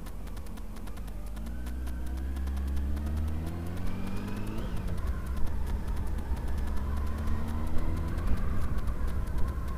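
Honda Hornet 900 motorcycle's inline-four engine accelerating through newly fitted exhaust silencers. It rises in pitch twice, dropping at each gear change, over a heavy wind rumble on the camera microphone.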